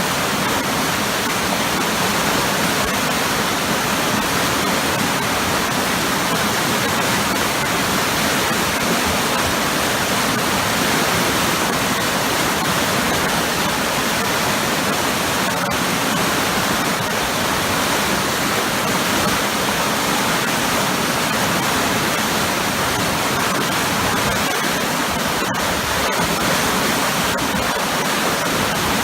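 Waterfall pouring into a churning pool, a loud, steady rush of water.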